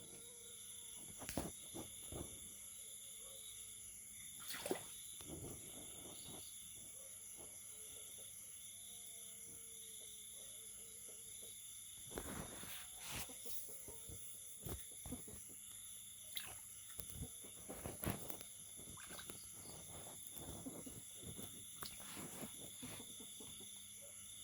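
Faint outdoor animal chorus: a steady high-pitched insect-like drone, with scattered soft clicks and a few faint short frog calls now and then.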